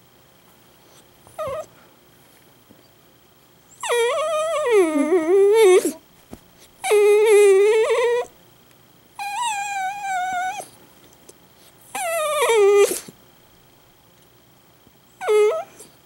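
Italian greyhound crying loudly in a series of drawn-out, wavering whining howls, each about one to two seconds long, with a brief yelp early on and another short cry near the end.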